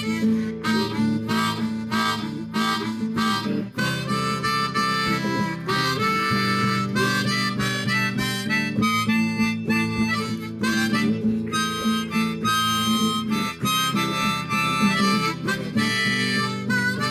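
Instrumental break of a strummed acoustic guitar with a harmonica playing held melody notes over the chords.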